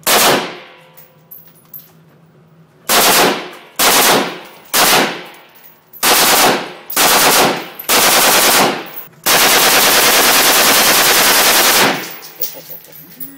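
AK-pattern rifle firing on automatic: a single loud shot, then about six short bursts, and finally one long continuous burst of roughly two and a half seconds, with echo after each.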